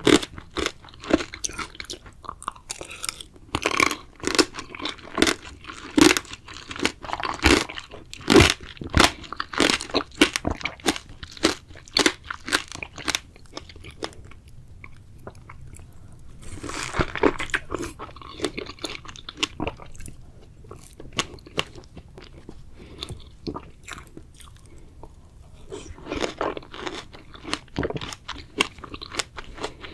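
Close-miked chewing and biting while eating strawberries: a fast run of crisp crunches for the first dozen seconds, a quieter stretch, a short burst of chewing about halfway through, and more crunching near the end.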